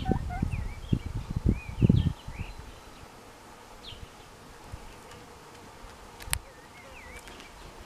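Silkie chicken giving short chirping calls: a run of them in the first couple of seconds, then a few scattered ones later. Low thumps and rustling come in the first two seconds, and a single sharp click about six seconds in.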